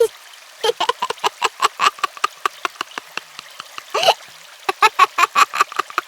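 A young child of about four to six laughing: two runs of quick, rapid-fire giggles with a pause between them, broken by a single longer, breathy sound rising in pitch about four seconds in.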